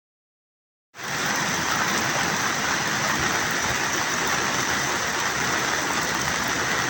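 Steady hiss of rushing water, from flash flooding and heavy rain, starting abruptly about a second in.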